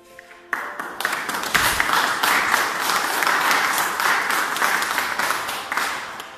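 Audience applauding: dense clapping that starts about half a second in, fills out within the next half second, and fades away near the end.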